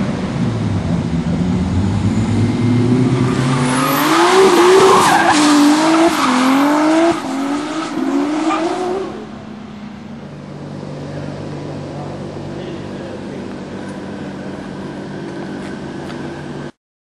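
BMW car doing a burnout and drift: the engine revs, then from about three seconds in the tyres squeal loudly, wavering up and down in pitch as the car slides, for about six seconds. After that the engine settles to a steady idle, until the sound cuts off suddenly near the end.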